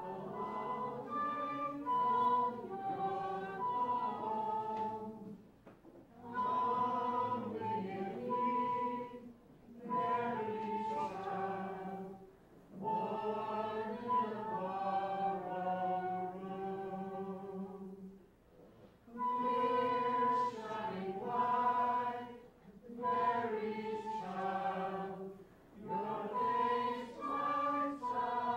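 A choir singing a song in phrases several seconds long, with short breaks between the phrases.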